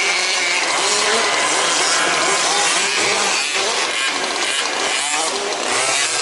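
Several 1/5-scale petrol RC trucks racing, their small two-stroke engines revving up and down over one another.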